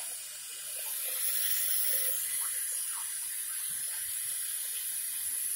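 Kitchen tap running steadily, water pouring into a stainless steel pot in the sink.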